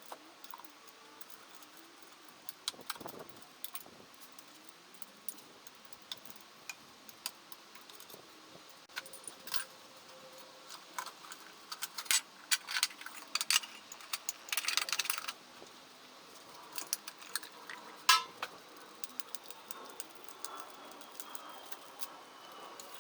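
Metal tools and parts clinking and clicking as they are handled, with a brief rattle in the middle and one sharper click a few seconds later.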